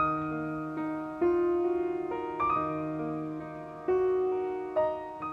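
Gentle solo piano background music: single notes and chords struck every second or so and left to ring out, fading away near the end.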